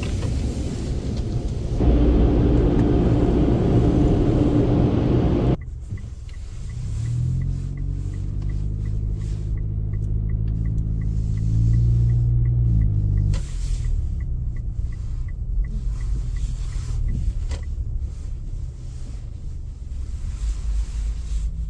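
Car engine running under way, with a low rumble; about six seconds in, the sound changes abruptly to a steadier engine note that rises and holds for several seconds before easing off, with a faint regular ticking alongside.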